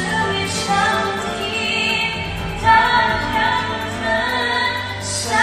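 Karaoke singing through microphones over a backing track: a woman's and a man's voices singing a dangdut song.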